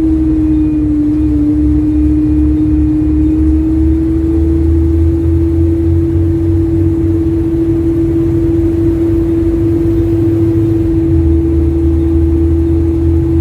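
A single-deck or double-deck service bus's engine and drivetrain running on the move, heard from inside the bus: a low pulsing rumble with a steady whine over it, the whine dipping slightly in pitch about a second in. The bus's exhaust manifold has gone, which makes the engine tick.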